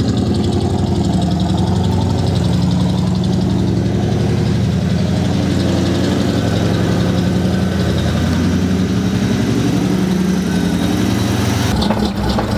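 1965 GMC 2500 pickup's freshly rebuilt engine idling steadily, then shut off near the end.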